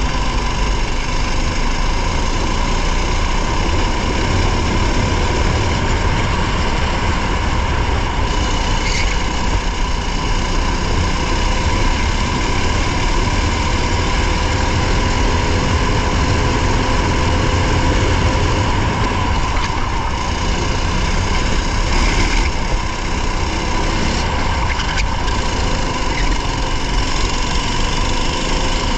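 Race car's engine running under way, heard from inside the car, with heavy low rumble and steady road noise; the engine note drifts slowly up and down.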